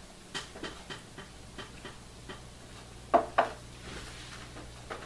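Faint, rapid ticking, about three ticks a second, and a little over three seconds in two quick knocks of a shot glass being set down on a wooden table.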